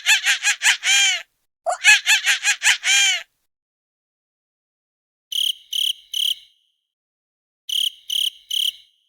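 Cartoon monkey sound effect: two runs of rapid, high-pitched chattering calls, each about a second and a half long. Then cricket chirping sound effect: two groups of three short, high chirps, a couple of seconds apart.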